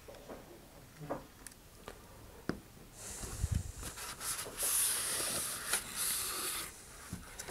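A paper towel rubbing and crinkling against a model rocket's body tube as it is wiped down, a rustling hiss lasting about four seconds from about three seconds in. A few light handling taps and knocks come before it.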